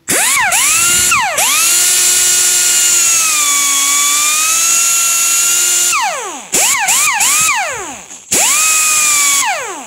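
Pneumatic mini die grinder running free: a high whine over air hiss. It spins up to one long steady run of about six seconds and winds down, then comes back in a few quick blips and one more short run, the pitch falling each time it is let off.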